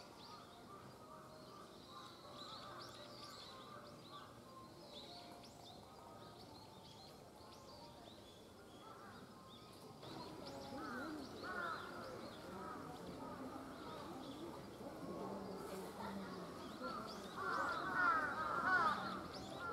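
Birds chirping and calling outdoors: thin high chirps at first, then from about halfway a run of harsher repeated calls that grow louder and peak near the end.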